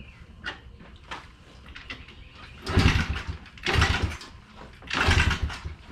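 Pit bike engine being cranked over by hand again and again, four short bursts about a second apart, turning over without catching: it is hard to start after sitting unused for about a year.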